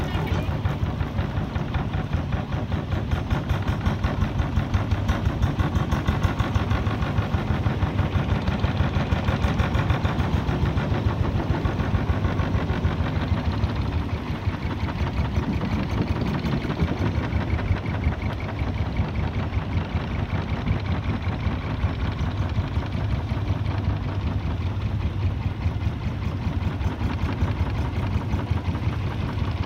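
Long-tail boat engine running steadily, a rapid even pulse driving a narrow wooden boat.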